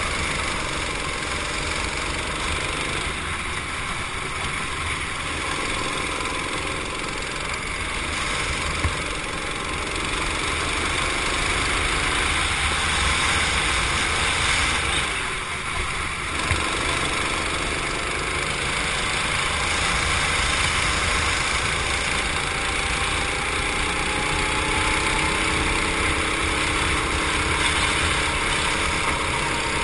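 Go-kart engine running hard at racing speed, heard from a camera mounted on the kart, over a steady rush of wind and tyre noise. The engine note dips briefly about halfway through, then climbs again toward the end.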